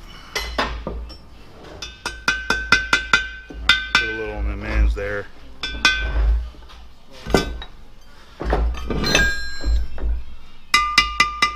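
Hammer striking a brazed cast iron pump housing in quick runs of several blows a second, each blow ringing metallically, with short pauses between the runs.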